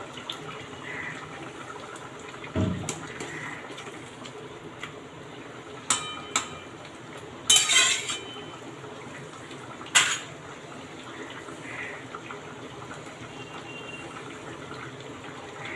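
Egg curry simmering in a metal kadai on a gas burner, broken by several sharp clinks and knocks of metal against the pan and a short clatter near the middle as the eggs are added and stirred in.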